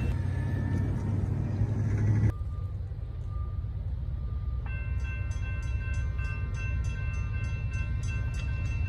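Train rumbling, low and steady; the sound cuts off abruptly just over two seconds in and drops to a quieter rumble. About halfway through, a ringing of several steady tones with quick, regular ticks sets in over it.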